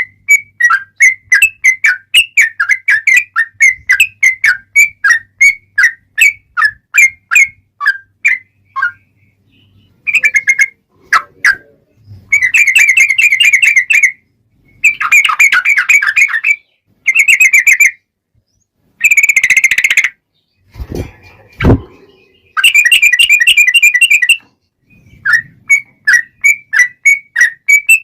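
Yellow-vented bulbul (trucukan) singing its fighting song: a string of loud whistled notes at about three a second, then long rapid rattling trills in bursts of one to two seconds each. Two sharp knocks come about three quarters of the way in.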